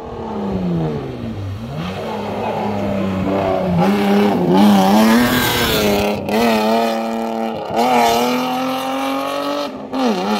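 Rally car engine on a stage: the engine note drops as the car slows for the hairpin, then it revs hard out of the corner. The note cuts off briefly three times near the end as the driver changes gear.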